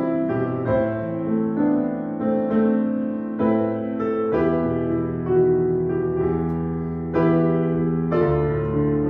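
Solo upright piano played slowly in sustained chords, a new chord or note struck about every second.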